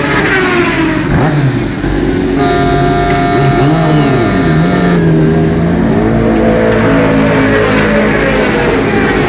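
Kawasaki ZX-6R supersport motorcycle engines running, revs rising and falling as they are blipped. A steady high tone joins for about two and a half seconds, a little after the start.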